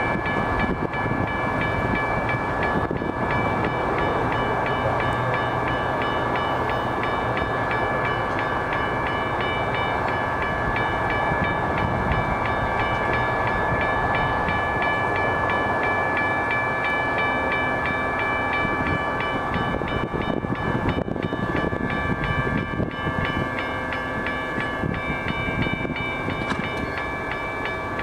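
Metra push-pull commuter train standing at a station platform, its EMD F40PH diesel locomotive running steadily at the far end, with a steady high-pitched whine over a continuous rumble and a fast, light repeating ticking above it. The sound eases a little near the end.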